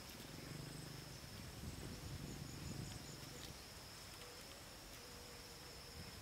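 Faint, steady high-pitched insect drone with a repeating chirp above it; a low rumble of handling noise in the first three seconds.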